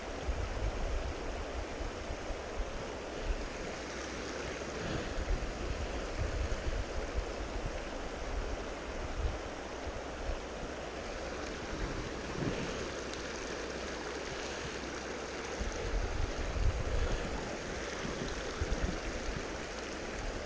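Shallow mountain river running over cobbles: a steady rush of water, with low buffeting on the microphone now and then.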